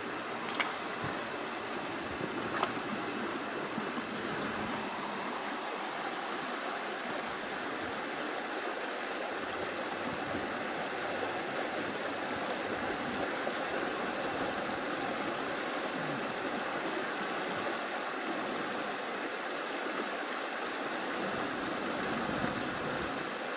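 Steady rush of running water, even throughout, with a thin high steady tone above it and a couple of faint clicks near the start.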